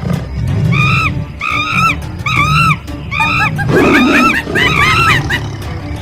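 Background music, over which short rising-and-falling high calls repeat about twice a second, with a brief rough, lower sound a little past the middle.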